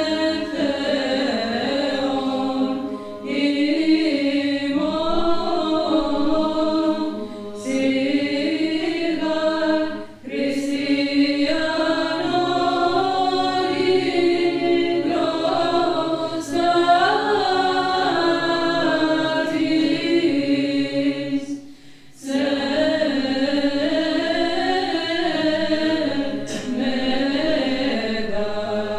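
Women's choir of Orthodox nuns singing a Theophany hymn a cappella in unison chant. The phrases are long and melismatic, with brief breaks for breath about ten seconds in and again about twenty-two seconds in.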